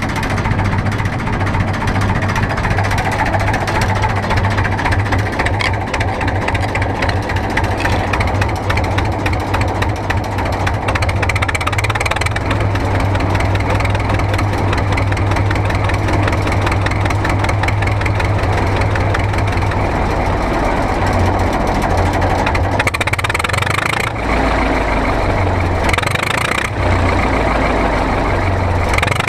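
Ruston Hornsby 4VPHN four-cylinder diesel engine running with a steady, even beat after being air-started. Its note changes about two-thirds of the way through, with a couple of brief surges near the end.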